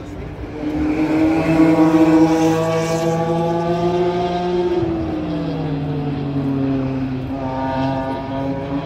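Car engine on a race track, its pitch climbing for a few seconds as it accelerates, falling away about five seconds in, then climbing again near the end.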